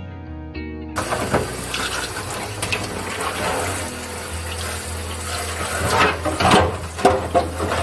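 Water running from a tap into a sink, starting about a second in, with splashing and a few clatters near the end as things are rinsed under the stream.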